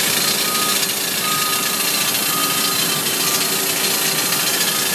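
Steady loud jet-aircraft noise on an airport apron, with a short beep repeating about once a second from a ground service vehicle's reversing alarm.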